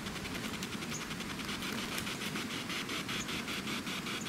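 Steady rushing of a nearby creek, with fast faint ticking and crackling over it.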